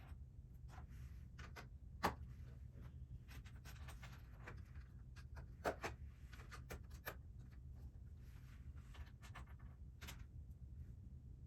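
Lego bricks being handled and pressed together: scattered light plastic clicks and rustles, the sharpest about two seconds in and again near the middle, over a steady low hum.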